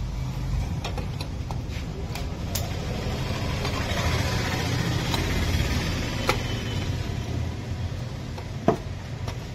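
Scattered light metal clicks and knocks as the starter's Bendix pinion drive and the variator pulley of a TVS Wego are worked by hand and pulled out of the open belt-drive case, over a steady low hum.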